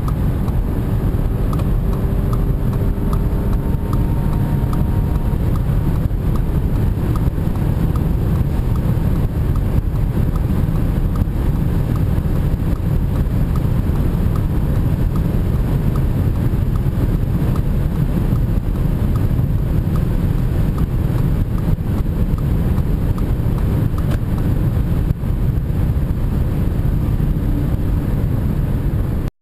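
Cabin noise inside an Audi A4 Allroad 2.0 TFSI quattro at full throttle at high Autobahn speed: a heavy, steady roar of wind and tyres with the turbocharged four-cylinder beneath it, its note climbing faintly in the first few seconds.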